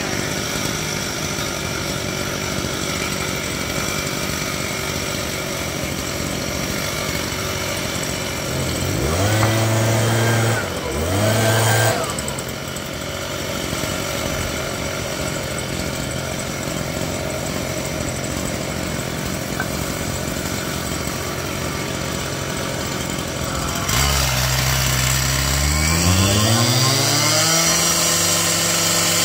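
Stihl TS 420 two-stroke cut-off saw running under load, its abrasive blade grinding through concrete pavers in a long continuous cut. About a third of the way in the engine note rises twice briefly, and from near the end it gets louder and climbs steadily in pitch as the saw revs up.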